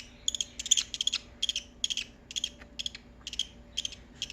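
Baby budgerigar begging for food: a rapid run of short, high, buzzy chirps repeating about three times a second.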